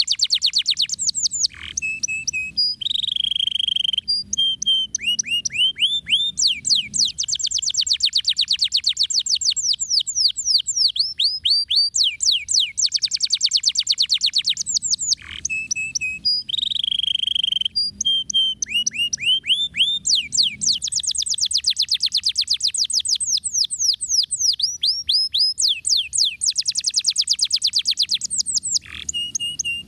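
Domestic canary singing a long, fast song: rapid rolling trills of downward-sweeping notes alternating with short steady whistled notes. It breaks briefly about a second and a half in, halfway through, and near the end.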